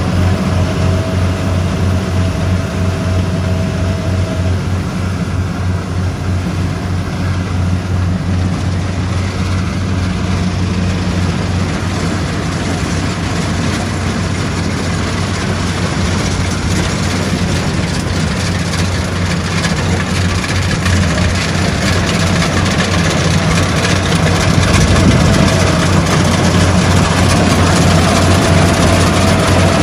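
Diesel engine of a tracked rice combine harvester running steadily under load while it cuts and threshes rice, a constant low engine hum under a dense, even mechanical noise.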